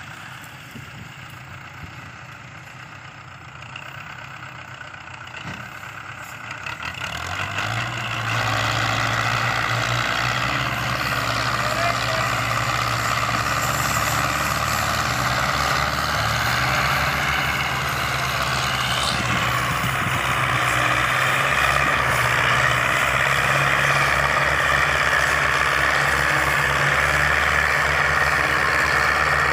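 Diesel engines of two Belarus 510 tractors working hard under load, hitched in tandem to pull a stuck, loaded sugarcane trolley. The engine sound grows much louder about seven seconds in and then holds steady.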